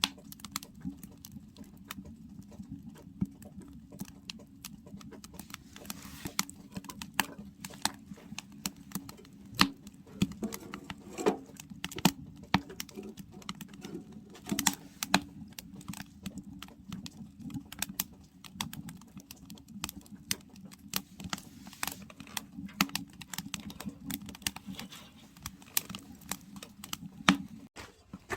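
Wood fire crackling, with irregular sharp pops and snaps over a steady low hum.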